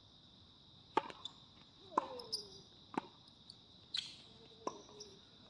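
Tennis ball hit off rackets and bouncing on a hard court: a serve struck about a second in, then sharp knocks roughly a second apart as the rally goes on. A steady high insect drone runs underneath.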